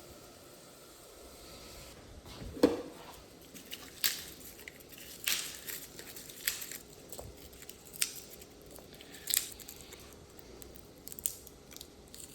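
Knife cutting potatoes into pieces on a cutting board: about seven sharp chops, spaced a second or so apart, over a faint steady hiss.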